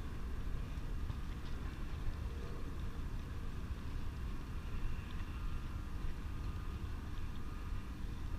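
Steady low rumble of outdoor ambience with a distant engine hum and faint, thin high tones; no single event stands out.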